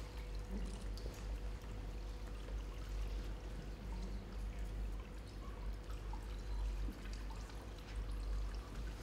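Liquid sloshing and dripping as a large calligraphy brush is worked in a bucket of ink, over a low steady hum.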